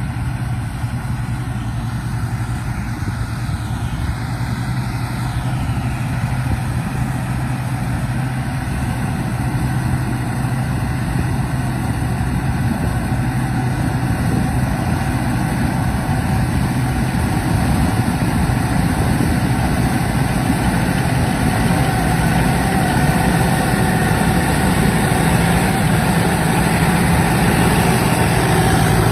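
Combine harvester engine running steadily, slowly growing louder.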